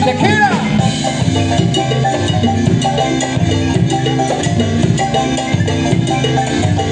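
Marimba ensemble playing an upbeat dance tune with drums and percussion, the marimba's quick struck notes repeating over a steady beat.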